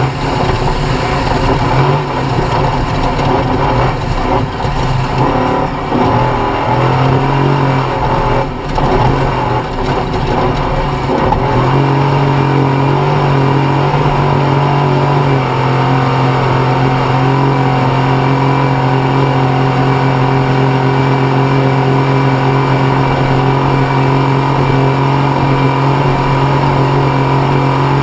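Off-road race vehicle's engine running hard. The throttle lifts and comes back on several times during the first half, then holds at steady high revs.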